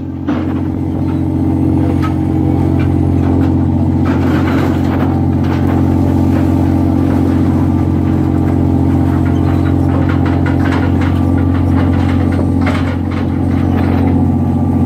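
Steady drone of a crab boat's engine and deck machinery, with scattered knocks and rattles as a steel-framed crab pot is tipped onto a metal sorting table and king crabs spill out.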